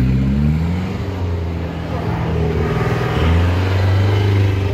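Off-road 4x4 jeep's engine revving under load in loose dirt. The revs climb in the first second, hold steady, then swell louder a little past the three-second mark.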